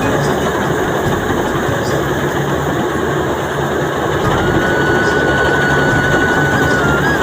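Rice harvester machine running steadily with a dense, loud mechanical din. About four seconds in, a steady high tone joins it and holds.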